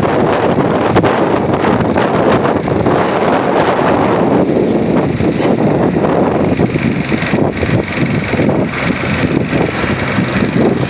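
Steady noise of vehicles driving on a road.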